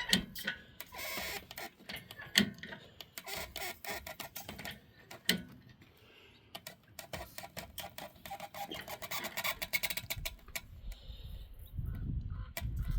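Ratchet strap being cranked in runs of rapid clicks, with a pause partway and a dense run of clicking later on. The strap is being tightened to pull a tire off a Hutchinson beadlock wheel.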